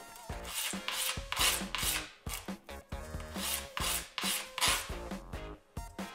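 A metal nut scrubbed back and forth on 100-grit sandpaper laid on a wooden board, quick scratchy strokes about twice a second with a short lull near the middle, roughening the metal so epoxy will adhere.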